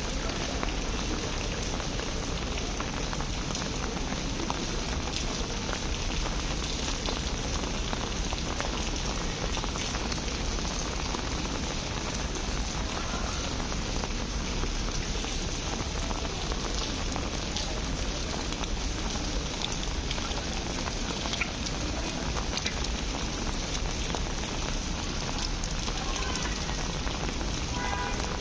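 Steady rain falling on a paved street, a continuous even hiss of drops.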